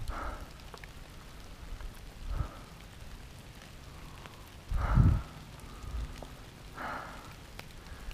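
Rain falling steadily on a mountain bike ride along a wet trail, with scattered sharp drop clicks. Low thumps from the bike over the rough trail come near the start, about two and a half seconds in and about seven seconds in, with the loudest about five seconds in.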